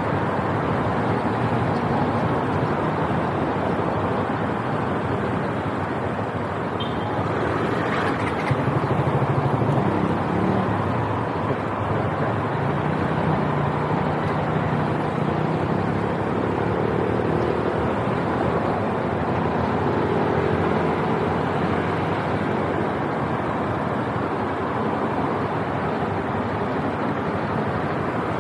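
Motorcycle riding through city traffic: a steady rush of wind on the mic over the motorbike's engine hum, which shifts in pitch with speed, with a brief louder stretch about eight seconds in.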